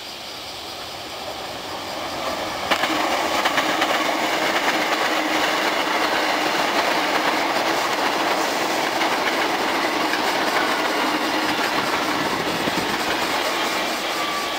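Hankyu 7300 series eight-car electric train, renewed with a Toyo Denki VVVF inverter, running close past while slowing to arrive at a station: steady running noise with wheels clattering over rail joints. The sound jumps up about three seconds in as the cars draw alongside, and a falling whine comes through near the end as the train brakes.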